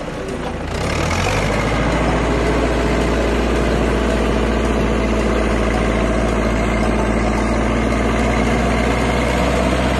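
Tractor diesel engine running steadily under load while pushing soil with a front dozer blade; the engine note picks up about a second in.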